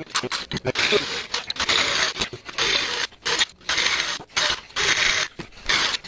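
Electric drill with a large twist bit cutting out the spot welds of a steel idler pulley, the motor and the bit grinding through the metal in short bursts that break off and start again many times.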